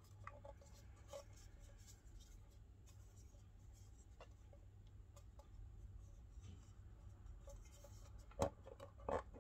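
Faint rubbing and scraping of hands turning a metal G-Shock watch tin, with scattered small clicks and one sharper click near the end.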